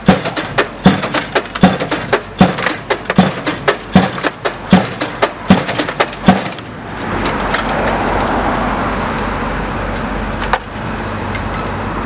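Junttan PM 23 LC piling rig's hydraulic hammer striking a concrete pile, about nine sharp blows a little under a second apart, stopping about six seconds in. After that the rig's engine and hydraulics run with a steady noisy hum and low rumble.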